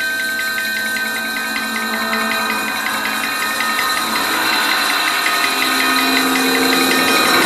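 A test record played back over hi-fi floor-standing loudspeakers: a dense, machine-like mix of several steady held tones, with a tone that slides in pitch and fast, regular ticking running through it.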